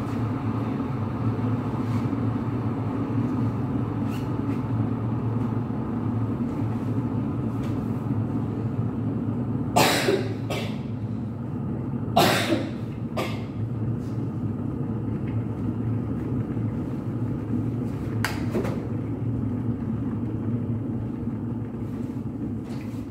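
A steady low mechanical hum, with three short sharp knocks or rustles about ten, twelve and eighteen seconds in.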